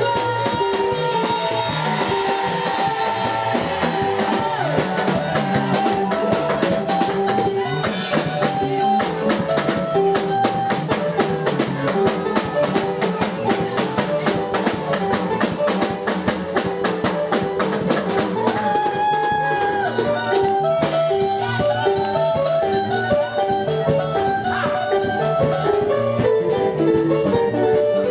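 Instrumental band music: a drum kit keeps a steady beat under guitar and held melodic notes, with no singing.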